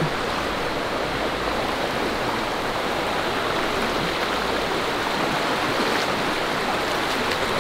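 Shallow, rocky river flowing over stones: a steady rush of water.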